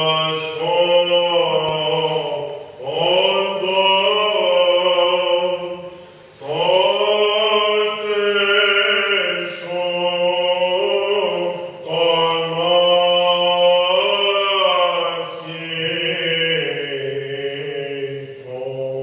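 Greek Orthodox Byzantine chant: a chanter sings a slow, ornamented melody in long phrases over a held low drone, with short breaks between phrases.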